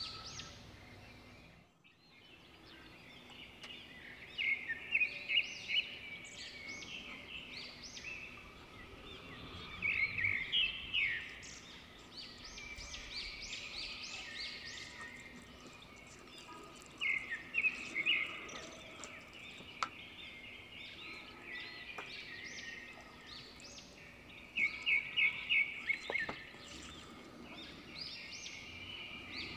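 Small birds chirping, with bursts of rapid repeated high notes every several seconds.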